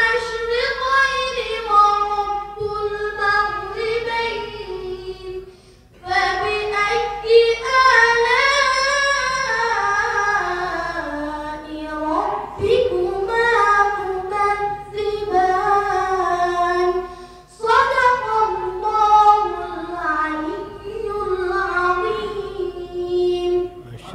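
A boy reciting the Quran in a melodic, chanted style into a microphone, in long drawn-out phrases with two short pauses, about six and about eighteen seconds in.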